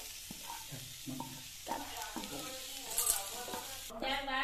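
Freshly fried cabbage sizzling in a hot non-stick kadhai while a wooden spatula stirs and scrapes it out of the pan, a steady hiss with scattered scrapes and knocks. The sizzle cuts off about four seconds in.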